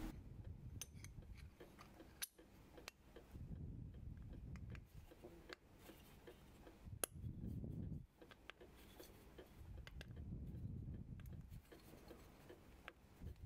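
Faint handling sounds of small brass parts: a few irregular metallic clicks and light scraping as a brass toothed rim is worked onto a clock wheel blank by hand, the fit too tight.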